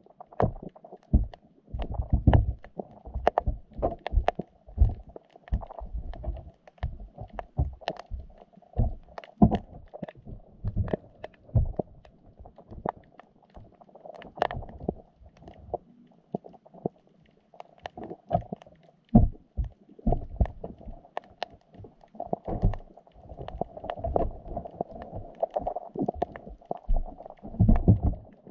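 Underwater sound heard through a GoPro's waterproof housing inside a wire fish trap: irregular muffled low thumps and sharp clicks and knocks, several close together at times, over a faint steady hum.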